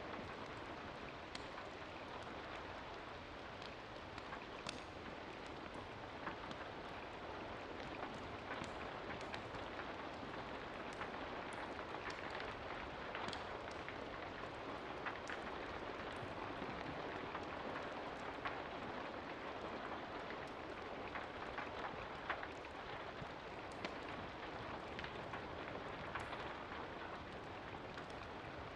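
Steady rain falling, an even hiss dotted throughout with scattered sharp ticks and drips.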